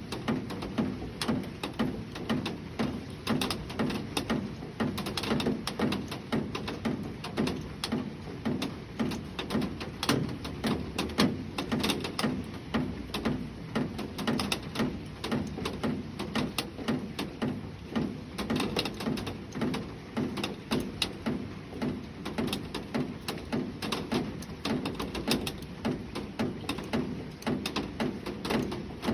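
Rain falling, raindrops tapping on a surface in a dense, irregular patter of many small taps.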